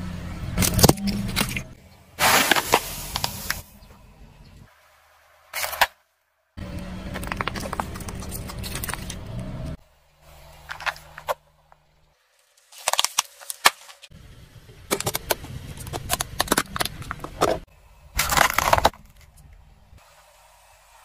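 A car tyre rolling over and crushing small objects, one after another, in short spliced clips: bursts of cracking and crunching with abrupt silent gaps between them.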